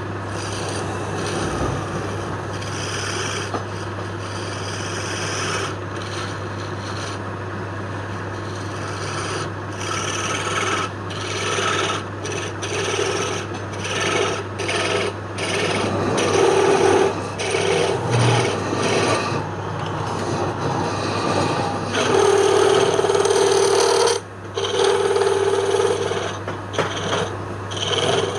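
Wood being scraped and cut by a tool in repeated strokes over a steady low motor hum. The strokes grow louder in the second half, some with a short ringing tone.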